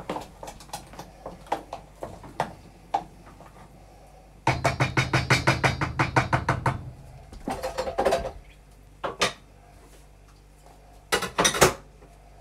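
Potato masher knocking against a pan while boiled celeriac is mashed. There are scattered knocks, then a fast run of strokes, about eight a second, for a couple of seconds midway, and a few louder clatters near the end.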